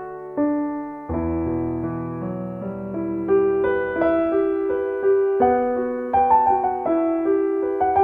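Background piano music: a slow melody of single notes and chords, each struck and then fading.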